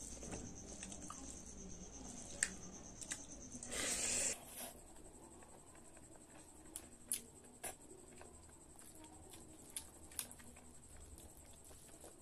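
A person eating rice mixed with saag by hand: wet chewing and mouth sounds with scattered small clicks. About four seconds in there is a short, louder noisy burst.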